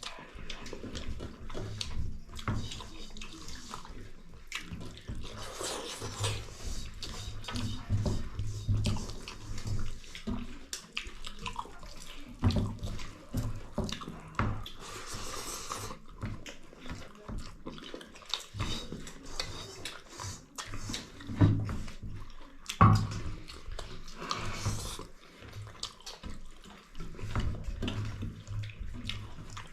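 Close-miked eating sounds: wet chewing, lip-smacking and the squelch of rice mixed with meat gravy, with small crackles and clicks throughout.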